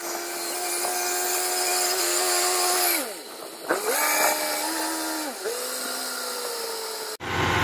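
Small engine of a tracked rice-hauling cart running hard, its whine dropping in pitch about three seconds in and again near five and a half seconds, then picking back up each time. Just before the end the sound cuts abruptly to a lower, steadier machine hum.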